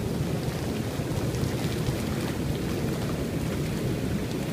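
Hot tub jets running with the pumps on, churning the water in a steady rush with a low rumble. The spa's plumbing is being purged with a cleaner, flushing biofilm out of the lines.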